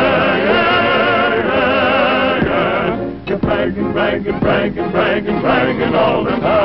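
Old cartoon soundtrack song: a chorus of voices holds a long, wavering chord over orchestral accompaniment for about three seconds, then the music breaks into a run of short, quick notes.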